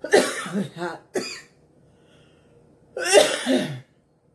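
A woman coughing in two bouts: one at the start lasting about a second, and another about three seconds in.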